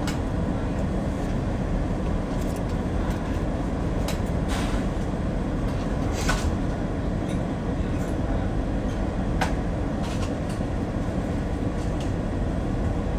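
Steady low rumble of a car running, heard from inside the cabin, with a few brief clicks or rattles.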